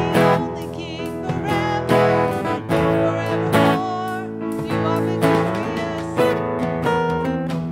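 Worship song with strummed acoustic guitar and a sung melody.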